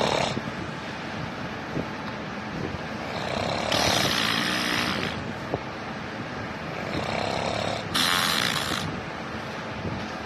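A person snoring heavily, one rasping breath about every four seconds: three in all. Each breath starts with a low rattle and swells into a loud, hissing rush, with steady background noise between breaths.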